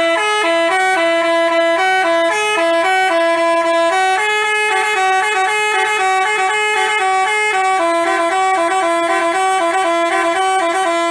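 Basuri telolet bus horn, a multi-tone musical air horn, playing a quick tune of stepping notes with several tones sounding together, loud and unbroken, cutting off suddenly at the end.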